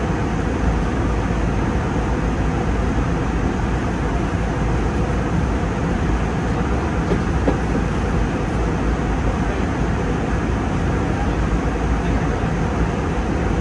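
Steady in-flight cabin noise of an Airbus A320neo heard from a window seat: an even rush of airflow and engine noise with a low rumble, unchanging throughout.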